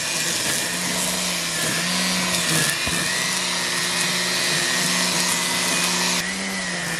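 Cordless battery string trimmer running steadily, cutting grass: a steady motor hum with a high whir of the spinning line, dipping briefly in pitch now and then as it bites into the grass. The high whir drops away about six seconds in.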